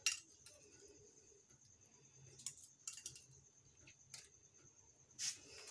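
Faint scattered clicks and light taps, about five in all, as fingers handle a small glass bowl and drop strawberry cubes into a glass mug of juice.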